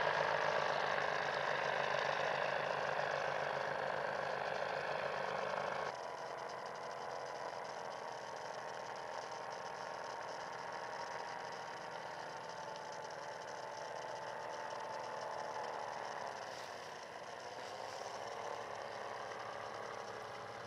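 Four-stroke engine of a powered paraglider trike, droning steadily in flight. It drops abruptly in loudness about six seconds in, and its pitch dips and comes back up near the end.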